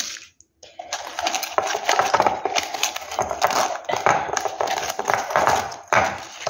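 Folded paper banknotes rustling and crinkling as they are pulled out of a broken ceramic piggy bank, a dense run of crackles that starts about half a second in.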